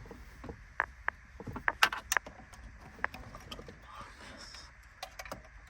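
Scattered sharp clicks and light knocks of hard plastic and metal parts being handled, loudest in a quick cluster about two seconds in, as the radio and its wiring harness are worked on.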